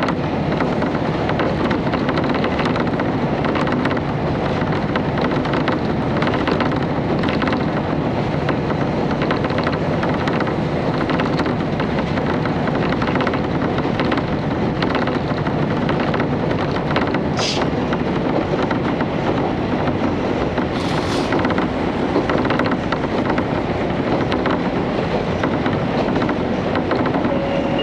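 Inside a KiHa 31 diesel railcar under way: a steady drone from the diesel engine and a rumble of wheels on rail. Two brief high-pitched noises come past the midpoint.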